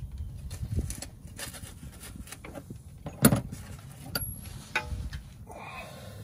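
Hand tools clinking and knocking against metal parts under a vehicle. A sharp metal clank about three seconds in is the loudest, followed by lighter clinks, one ringing briefly near five seconds, and a short rasp near the end.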